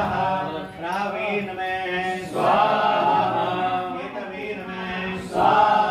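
Voices chanting Sanskrit hawan mantras in long held, sung phrases, with a fresh phrase starting about two seconds in and again near the end.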